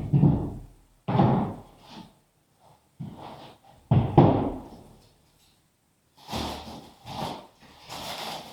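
Three heavy knocks as stiff parts are set down and handled, one at the start, one about a second in and one about four seconds in. Softer scraping and rustling follow near the end.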